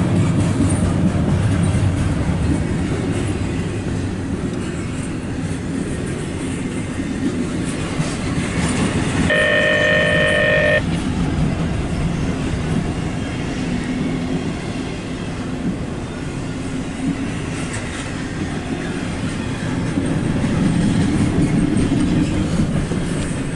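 CSX intermodal freight train rolling past, with a steady low rumble from its cars on the rails. About nine seconds in comes a single horn blast lasting about a second and a half.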